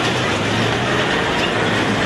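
Hong Kong double-decker electric tram rolling past at close range: a steady running noise with a low hum, over street traffic.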